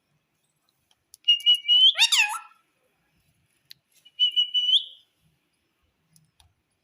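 Indian ringneck parakeet making two whistled calls: the first, about a second in, a held high note that breaks into quick sweeping glides; the second, about four seconds in, a held high note that rises at the end.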